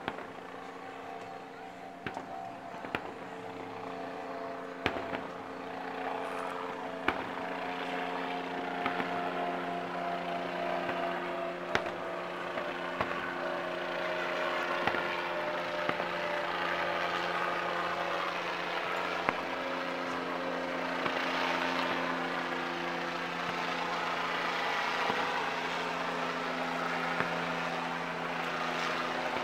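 Distant aerial fireworks bursting: a sharp bang every few seconds at irregular spacing, over a steady mechanical hum with an engine-like drone.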